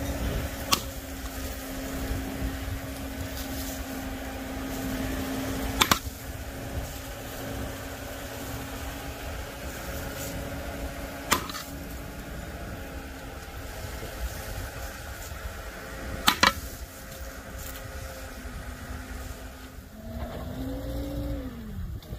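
Sledgehammer blows on a bent steel wheel rim to straighten it: five sharp metallic strikes a few seconds apart, the last two in quick succession, over a steady mechanical hum.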